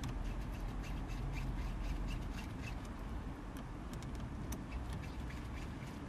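Scattered small clicks, scrapes and brief squeaks of a screwdriver working on the gear lever's plastic and metal parts under the leather gaiter, over a steady low rumble.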